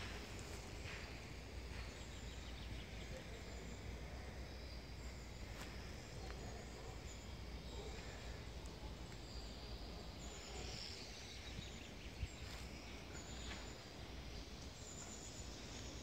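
Faint forest ambience: a steady low hiss and rumble with scattered short, high bird chirps, and a single sharp click about twelve seconds in.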